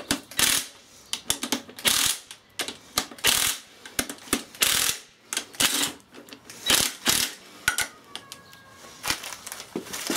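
Hand socket ratchet clicking in a string of short, uneven bursts as bolts on a VW gearbox housing are run down and tightened.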